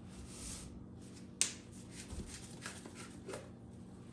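White plastic catalyst bottle being handled in gloved hands and its cap twisted off. A soft hiss near the start, then one sharp plastic click about a second and a half in, followed by faint rustles and small clicks.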